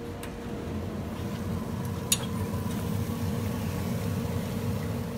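Pellet grill running with its lid open: a steady hum and rush. A single sharp click comes about two seconds in.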